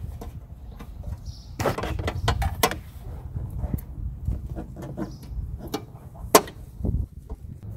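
Hands handling the convertible top's hydraulic pump and its hoses, making a run of clicks and knocks a second and a half to three seconds in, and one sharp click about six seconds in.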